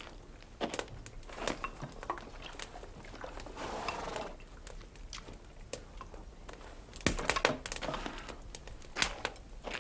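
Dishes and a pan being handled, with scattered light clinks and knocks and a cluster of sharper clicks about seven seconds in.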